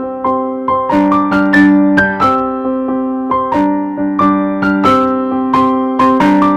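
Background music: a gentle piano tune with notes struck in a steady pulse, each note fading before the next.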